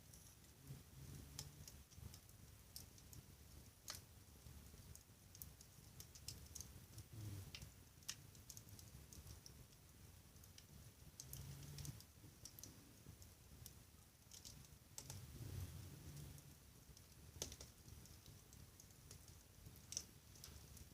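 Wood fire crackling in a fireplace: quiet, irregular snaps and pops, with a faint low rumble underneath.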